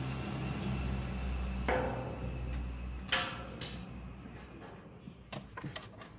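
A low steady rumble that fades away after about three seconds, with a few sharp light clicks and knocks scattered through, from kittens scrambling about on the boards of a wooden box shelter.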